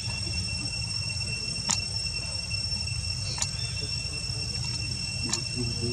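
Steady high-pitched drone of insects with a low rumble underneath, broken by three sharp clicks evenly spaced a little under two seconds apart.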